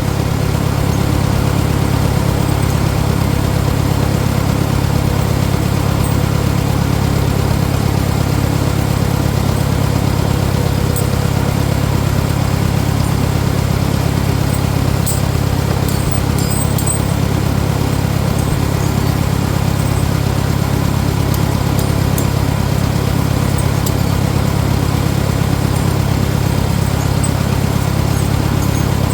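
Farmall 400 tractor engine idling steadily at an even pitch and level.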